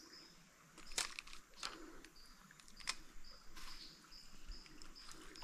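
Forest insects chirping in short, evenly repeated high notes, with several sharp clicks in the first few seconds.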